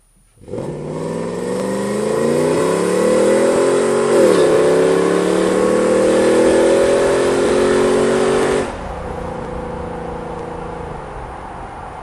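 A 2004 Nissan Titan's 5.6-litre V8, exhausting through JBA long-tube headers and a Gibson muffler with a Vibrant resonator, heard from inside the cab under hard acceleration. The engine note climbs, drops about four seconds in as the automatic shifts up, and climbs again. Near nine seconds the throttle closes and the exhaust falls to a quieter drone.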